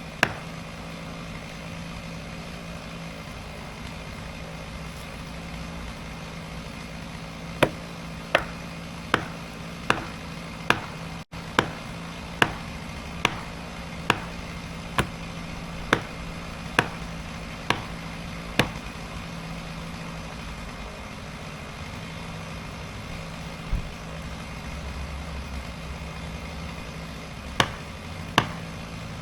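Felling wedges being driven into the back cut with hammer strikes, a run of about fourteen sharp blows roughly one every three-quarters of a second, with a few more near the end. Under them a chainsaw idles with a steady low hum.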